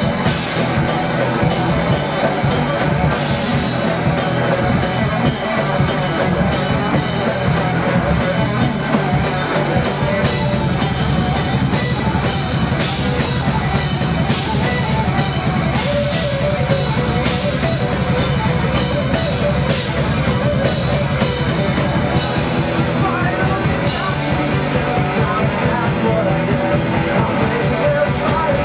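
Rock band playing live, electric guitars and drum kit loud and steady.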